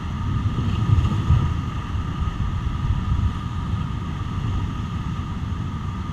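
Steady low rumble of rushing river water around a raft on the rapids, with wind buffeting the microphone.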